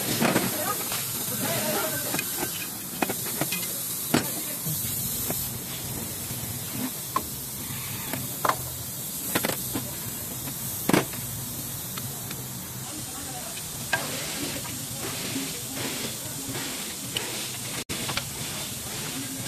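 Scattered sharp clicks and metallic clinks of steel parking-brake shoes and their return spring being handled and worked with pliers, over a steady hiss.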